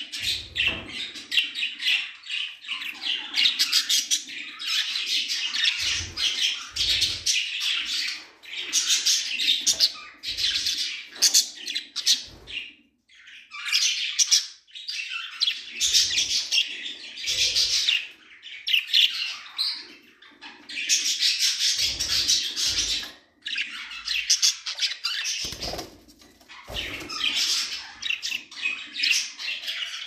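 Pet budgerigars chattering and warbling in fast, scratchy high-pitched bouts of a few seconds with short pauses between, with occasional soft thumps.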